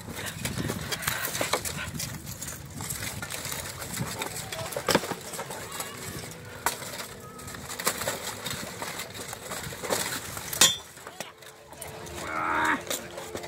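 Armoured buhurt fighters trading blows: weapons and shields clanking and knocking against steel plate in scattered strikes, a sharp one about ten and a half seconds in, with voices around and a voice calling out near the end.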